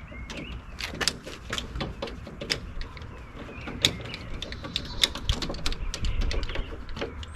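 Irregular metallic clicks and clatter of hand tools on door hardware, as the old door's fasteners are worked loose for removal.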